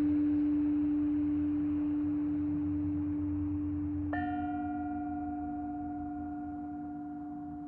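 Long ringing tones from a struck resonant instrument used in sound healing. A low tone fades slowly throughout, and a second, higher tone is struck about four seconds in, its upper overtones dying away first and leaving a clear ringing note.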